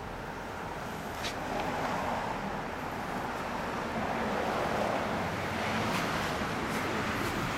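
Motorcycle engine running steadily, a little louder after about two seconds.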